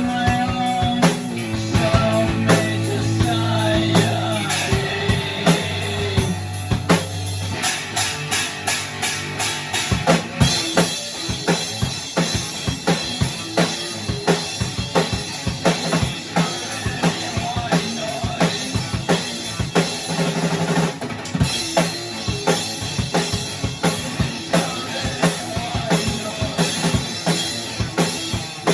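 A band jamming on a rock groove: a drum kit keeps up a busy steady beat of kick, snare and rimshot hits, with bass and guitar holding chords underneath. Held low bass notes drop out about a quarter of the way in, and a wash of cymbals comes in about a third of the way through.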